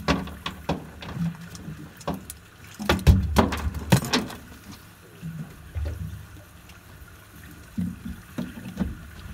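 Water lapping against a small boat's hull, with irregular knocks and clatters and a cluster of louder low thumps about three to four seconds in.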